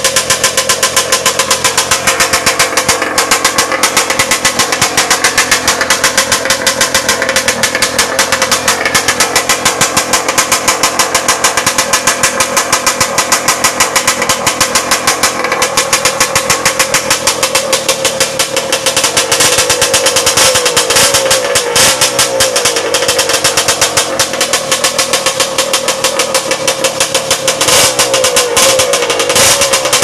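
Yamaha motorcycle engine running through an aftermarket 'banana' tube-type exhaust pipe. It idles with a rapid, even pulse, then revs up and down from about two-thirds of the way through.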